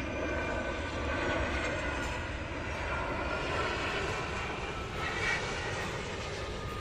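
Boeing 757 freighter landing on the runway, its jet engines heard from a distance: a steady rushing noise with faint whining tones that slowly fall in pitch.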